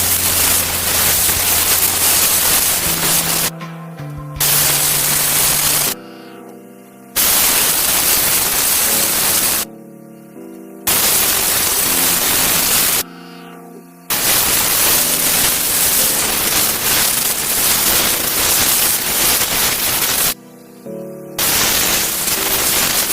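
Loud, even hissing in long bursts that cut off abruptly five times for about a second each, with background music underneath.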